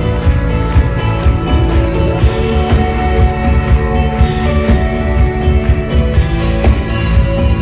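Rock band playing live: drums, bass and electric guitars, loud and bass-heavy, with the cymbals brightening about two seconds in and again about six seconds in.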